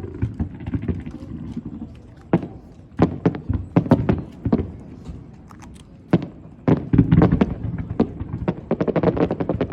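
Aerial fireworks shells bursting: scattered sharp bangs, then a dense run of rapid crackling reports from about seven seconds in.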